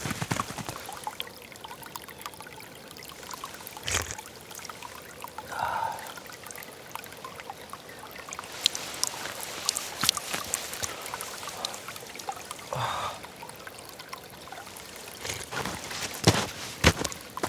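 Water trickling, with scattered sharp clicks and two brief higher-pitched sounds.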